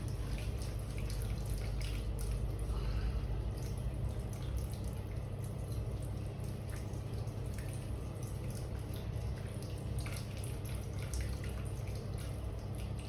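Steady low background hum with faint, irregular small clicks and taps.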